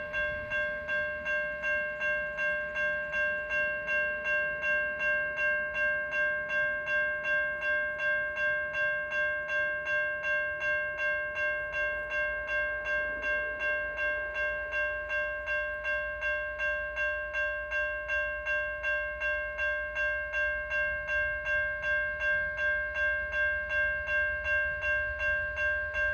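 Railway level crossing bell ringing steadily, about two to three strokes a second, with a faint low rumble underneath.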